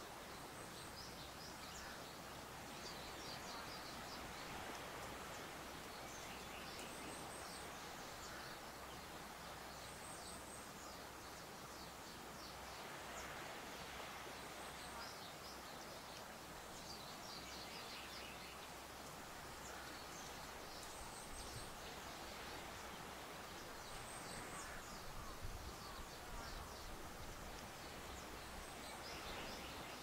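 Breeze rustling through tall grass as a steady hiss, with short runs of quick, high chirps recurring every few seconds.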